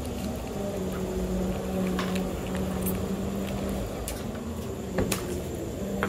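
Hot oil sizzling in a frying pan as seasoning is sprinkled in, with a few sharp pops and clicks, over a steady low hum.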